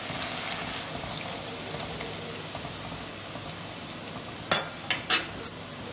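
Oyster mushroom and cabbage pakoras sizzling steadily as they deep-fry in hot oil in a kadai. About four and a half seconds in come a few sharp metallic clicks, as the wire-mesh skimmer knocks against the pan while the fried pakoras are lifted out.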